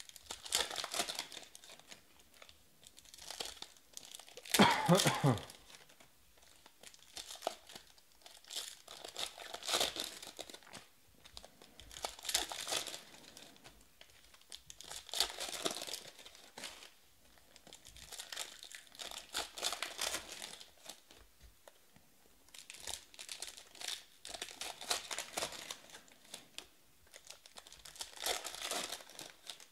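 Foil trading-card packs being torn open and crinkled, with cards handled between them, in bursts every few seconds. About five seconds in comes a short, louder sound that falls in pitch.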